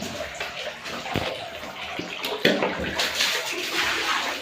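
Water running and splashing as feet are washed, the splashing surging louder a little past halfway.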